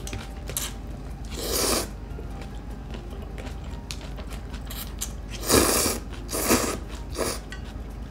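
Close-miked eating of ramen noodles: four short slurps, the first about a second and a half in and three close together near the end, with faint chewing between them.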